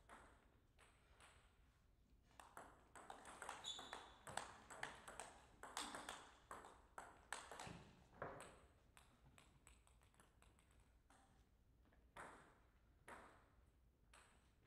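Table tennis rally: the plastic ball clicks off the table and the paddles in quick alternation for about six seconds, then the rally stops. Two single knocks follow near the end.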